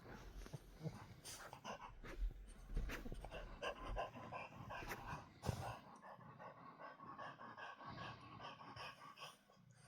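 Faint snoring and heavy breathing of a sleeping dog, uneven from breath to breath, with a cat purring alongside.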